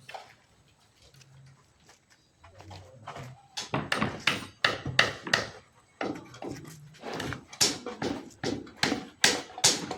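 Repeated sharp knocks of construction work, about two or three a second and irregular, starting about three and a half seconds in.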